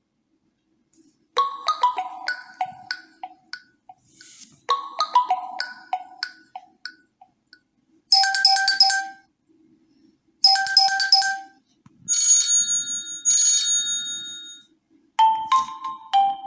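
Huawei T3 8 tablet's preset ringtones played through its speaker, one short melody after another. A falling chime phrase plays twice, then a bright repeated electronic pattern twice, then high held tones twice. A marimba-like tune starts near the end.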